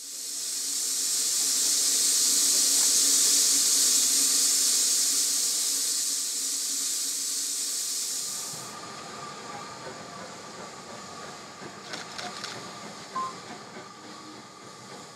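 LNER K4 2-6-0 steam locomotive 61994 The Great Marquess letting off steam with a loud, steady hiss that stops abruptly about two thirds of the way through. After that, a much quieter stretch with a faint steady tone and a few short clicks.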